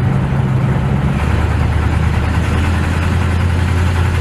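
1956 Chevrolet Bel Air engine running while the car is driven, with a steady low hum. Its note drops to a lower pitch about a second in.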